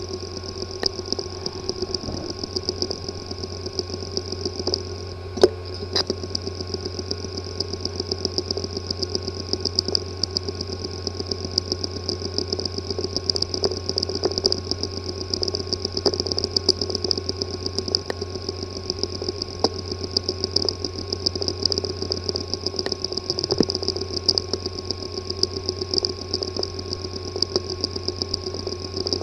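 Hard drive with a physically damaged disk assembly running: a steady hum with a fast, even ticking, the abnormal noise of a failed head/platter assembly.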